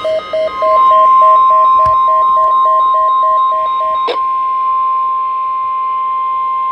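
Weather alert radio sounding a National Weather Service alert: a steady 1050 Hz warning alarm tone, which signals that a warning broadcast is about to follow. Over it the receiver's own beeper repeats about three times a second, until a click about four seconds in stops the beeping while the tone goes on.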